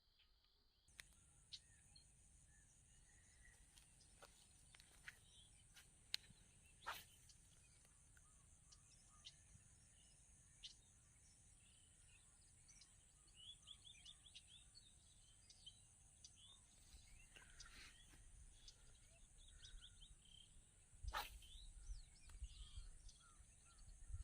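Faint outdoor rural ambience: a steady high-pitched insect drone with scattered bird chirps. A few sharp clicks are heard, and there is a low rumble near the end.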